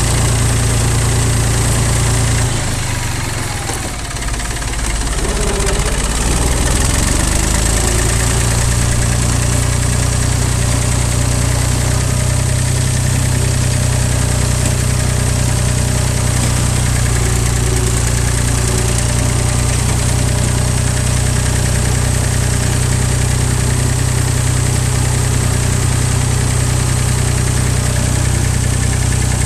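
Old tractor engine running steadily as the tractor drives along carrying a wrapped bale on its front loader. The engine note drops and eases off a few seconds in, then comes back up and holds steady.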